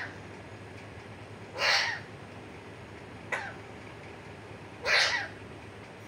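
Pet green parakeet squawking: three harsh calls about a second and a half apart, the middle one short and clipped.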